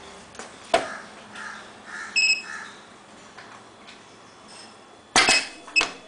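ST-10 button wrapping and knotting machine being switched on for initialisation: a sharp click about a second in, then a short high electronic beep. Near the end come two loud clacks from the machine, the second with another brief beep.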